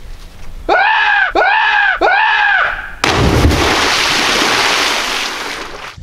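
A person whoops three times. About three seconds in, a cliff jumper hits the water of the swimming hole with a sudden heavy splash, and spray hisses for a couple of seconds after.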